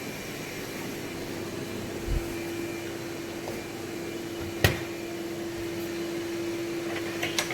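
Steady machine hum holding one low tone, with a sharp click about four and a half seconds in, a dull thump about two seconds in and a lighter click near the end.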